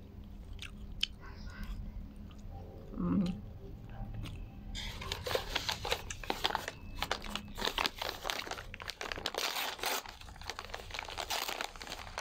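Quiet chewing with a few small clicks, and a brief hummed voice about three seconds in. From about five seconds in, a paper takeaway bag rustles and crinkles steadily as hands rummage inside it.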